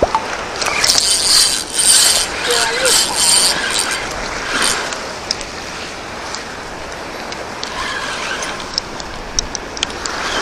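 Spinning reel on a bent jigging rod working against a hooked fish: a fast mechanical whirring and clicking, densest in the first few seconds and returning in short runs near the end.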